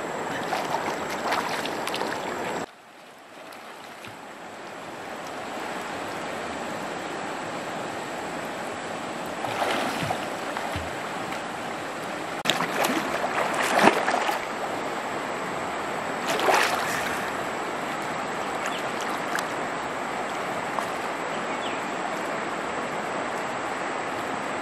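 Steady rush of flowing stream water, with splashing from a swimmer in the water a few times, loudest about fourteen seconds in. The water noise drops out suddenly about three seconds in and builds back over the next few seconds.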